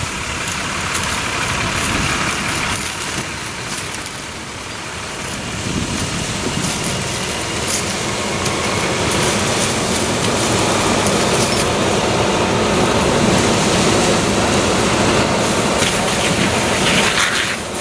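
Steady engine drone and rushing noise from a fire engine running and a hose line spraying water onto burning brush, slightly louder in the second half.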